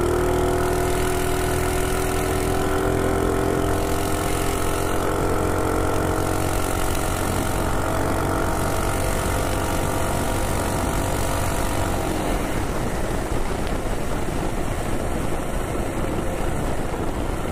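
Minibike's Predator Ghost single-cylinder engine pulling hard at speed, its pitch climbing slowly under throttle. About twelve seconds in, the engine note drops away as the bike slows, leaving mostly the rush of wind and tyres.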